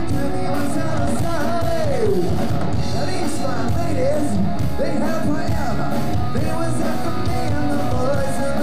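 Live rock band playing: electric guitar, bass guitar and drum kit, with a lead line that bends and slides up and down in pitch over a steady beat.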